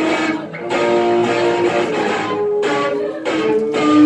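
Live performance music with guitar.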